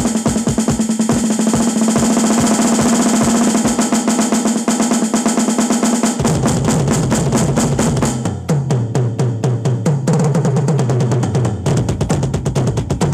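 Drum kit solo played hard and fast: rapid strokes under a wash of cymbals, then about six seconds in the cymbals thin out and fast rolls carry on around the lower-pitched drums.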